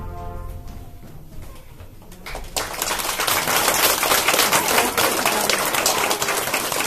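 Music fades out in the first second; about two seconds later an audience breaks into applause, dense hand-clapping that stays loud.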